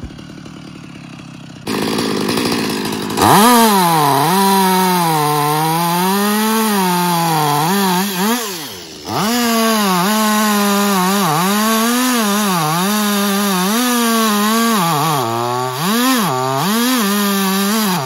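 Two-stroke gasoline chainsaw cutting through a coconut palm trunk, its engine note wavering up and down as the bar loads and unloads in the cut. It picks up to full throttle within the first few seconds, eases off briefly about halfway, and is blipped a few times near the end.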